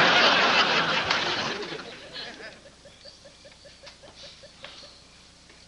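Sitcom audience laughter after a punchline, loud at first and fading away over about two seconds into quiet.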